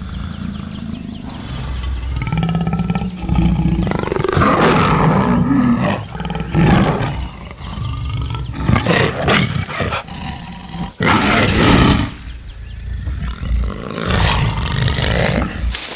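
Black jaguar snarling and roaring in a series of loud, rough snarls a couple of seconds apart.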